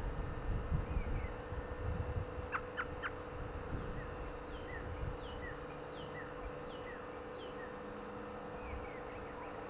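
American robin giving short, high chirps that fall in pitch, one or two a second, with a few sharp clicks among them. Wind rumbles on the microphone for the first few seconds, and a steady hum runs underneath.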